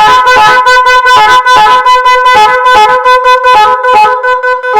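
Two-horn musical car horn kit playing a tune, a quick run of loud, short notes that switch between a few steady pitches.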